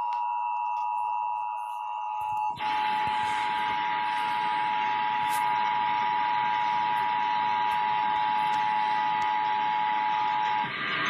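Emergency Alert System attention signal: the two-tone 853 and 960 Hz alarm tone held steadily for about ten seconds, cutting off just before the end. A steady hiss comes in under it about two and a half seconds in.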